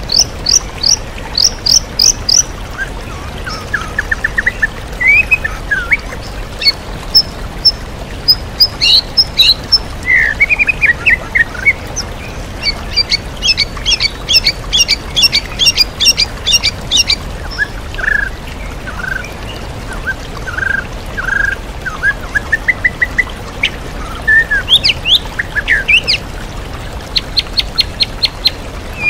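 White-rumped shama (murai batu) singing a long, varied song of fast repeated chips, trills and whistled phrases, mixing in imitations of other birds. Under it runs the steady rush of a waterfall.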